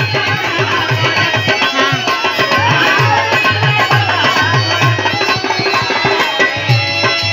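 Live Indian folk-song accompaniment between sung lines: a dholak drummed by hand in a steady rhythm under a harmonium holding and playing the melody.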